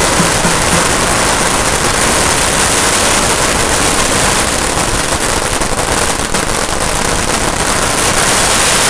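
A long string of firecrackers burning on the ground, going off in a loud, dense, unbroken crackle of rapid bangs.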